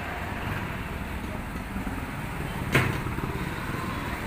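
Steady roadside traffic noise, with one sharp click about three seconds in.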